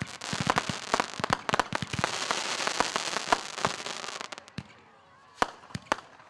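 Fireworks going off: a rapid run of many sharp bangs and pops that thins out after about four seconds to a few scattered pops.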